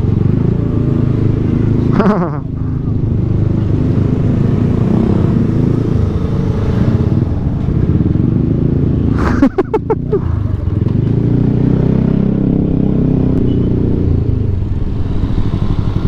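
Scooter engine running at low speed in stop-and-go motorbike and car traffic, a steady low rumble. There is a short falling whine about two seconds in, and a brief sharp burst of loud clatter about nine and a half seconds in.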